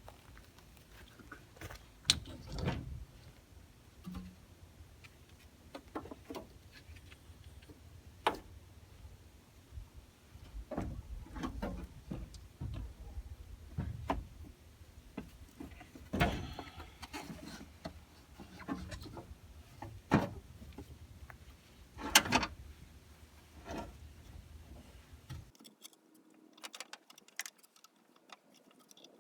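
Handling noise from a truck battery being fitted into its housing: scattered knocks, clunks and rubbing, with two sharp loud clacks, one about two seconds in and one near the end.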